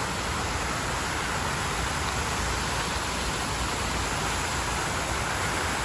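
Shower running: a steady, even rush of falling water.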